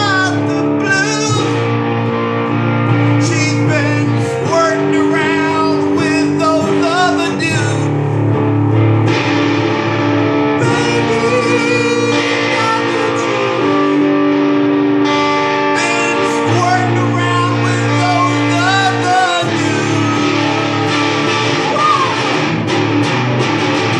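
Electric guitar played in a blues-rock style over a steady low bass backing, with held notes and wavering, bent notes, and wordless singing along at times.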